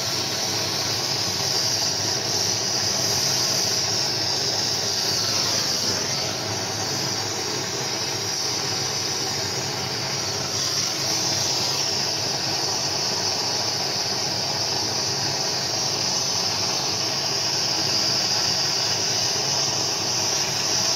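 A steady, unbroken hiss from a heating tool warming a crankshaft bearing so that it will expand and slide onto the shaft.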